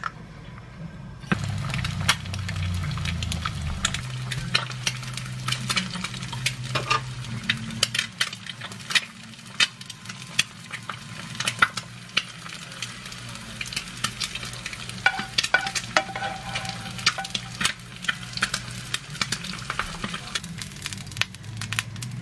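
Food sizzling in a frying pan, starting suddenly about a second in, with many sharp taps and scrapes of a utensil throughout.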